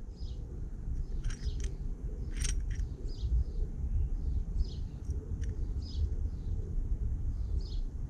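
A small bird chirping again and again, short calls about every half second to a second, over a steady low outdoor rumble. A few light, sharp clicks come about two seconds in.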